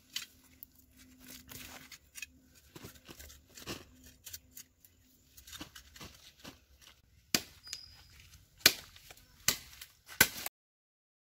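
Hands working a freshly pulled cassava plant in loose soil: crumbling earth and rustling, tearing roots, then four sharp cracks near the end as the tubers are broken off. The sound cuts off suddenly shortly before the end.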